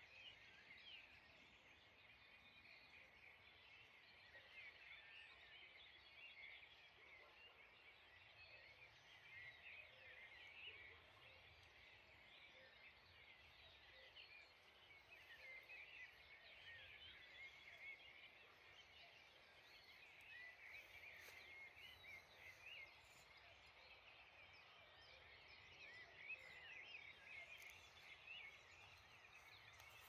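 Faint dawn chorus of many small birds chirping and calling over one another without a break.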